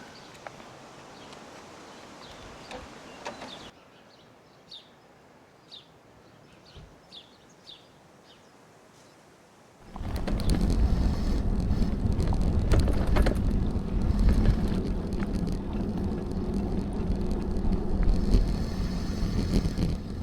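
Quiet outdoor ambience with short high bird chirps, then, about ten seconds in, a sudden loud rumble of wind buffeting the microphone with rattling clicks as the bicycle is ridden.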